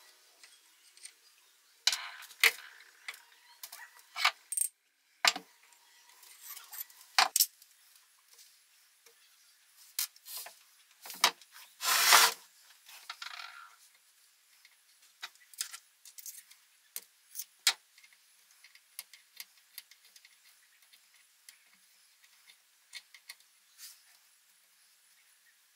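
Metal tools and parts clinking and knocking as they are handled, in irregular sharp strikes with a longer clatter about twelve seconds in, then lighter scattered ticks.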